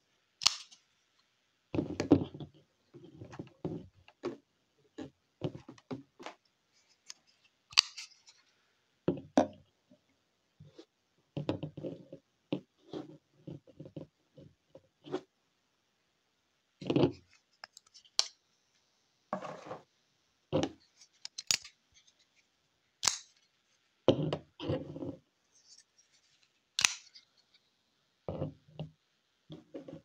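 Folding knives being handled and set down on a tabletop: irregular clicks, taps and soft knocks with short pauses between.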